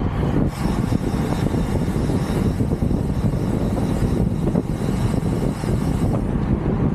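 Wind buffeting the microphone of a rider on a moving bicycle: a steady, loud rush of noise, heaviest in the low end.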